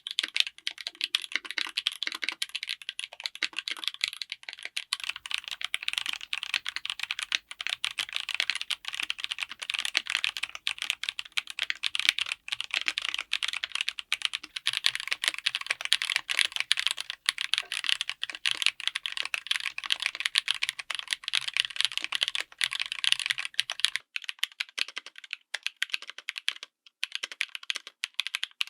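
Fast, continuous typing on a mechanical keyboard fitted with tactile switches: a dense run of key clacks. The character of the clacks changes about five seconds in and again near the end.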